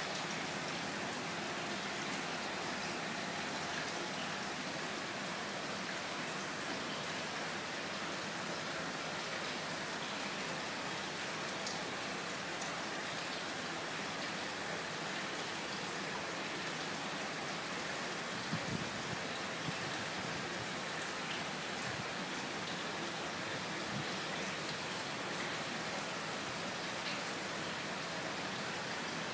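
Aquarium air stone bubbling: a steady rush of air bubbles rising and breaking at the water surface. A few soft low thumps come about two-thirds of the way through.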